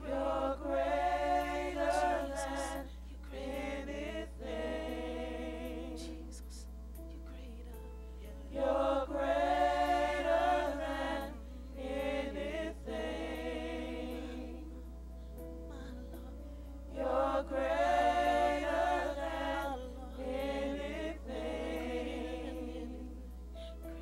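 Gospel choir singing a slow worship song, its phrases swelling loud about every eight seconds with quieter held singing in between.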